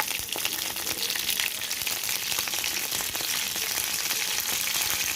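Hot oil sizzling and crackling steadily in a pan as a tempering of peanuts, chana dal, urad dal, green chillies and freshly added curry leaves fries, with many small pops and spits.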